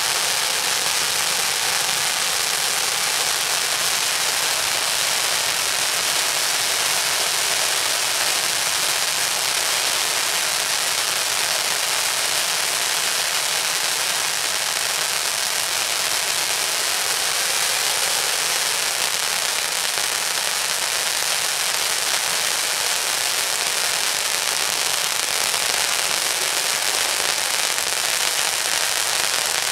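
Many ground fireworks and firecrackers going off at once, a dense, continuous crackling barrage without pauses.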